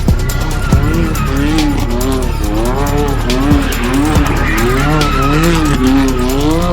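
Car engine revving up and down about twice a second as its tyres spin and squeal in a burnout.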